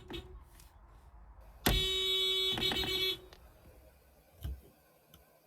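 Car horn of a 2017 Nissan Versa SV sounding once for about a second and a half: a steady tone rich in overtones. A short low thump follows near the end.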